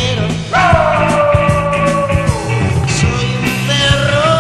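Rock band recording with drums, bass and guitars playing steadily. A long, high held note with a slight waver starts about half a second in and fades out around two seconds.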